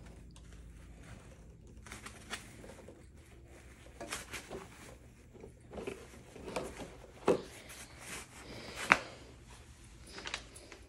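Intermittent rustling and light clicks and knocks from handling the parts and cloth costume of an animatronic Halloween prop as it is put together. The sharpest click comes about nine seconds in.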